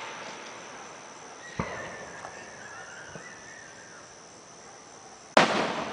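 Firework shells bursting overhead: one bang about a second and a half in, and a louder boom near the end. Crickets chirr steadily in the background.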